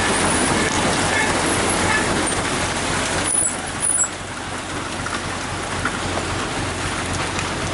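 Concrete mixer truck's engine running with its drum turning as it discharges concrete down the chute: a steady, loud mechanical rumble and wash that drops noticeably a little over three seconds in.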